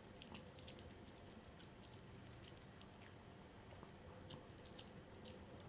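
Faint, scattered crunching clicks of a Chihuahua chewing small pieces of dog jerky.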